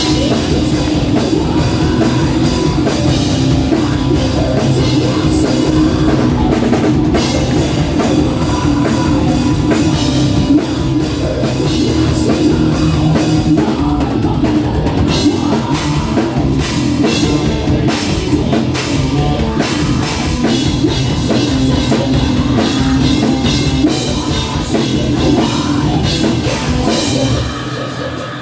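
Metal band playing live at full volume: distorted electric guitar and a drum kit hitting hard in a steady, driving rhythm.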